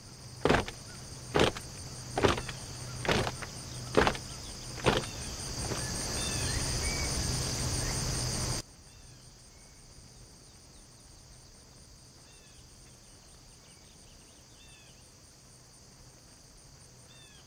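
Crickets and other field insects chirping steadily. Over them come about six thuds roughly a second apart, a dancer's footfalls on the stubble, then a rising rush of noise that cuts off abruptly about eight and a half seconds in. After that the crickets go on more faintly, with a few short bird chirps.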